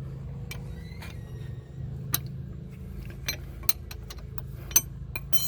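Scattered sharp metal clicks and clinks, seven or so spread irregularly with the loudest just before the end, as steel wheel-bearing bolts are worked loose by hand and pulled out of a front hub. A steady low hum runs underneath.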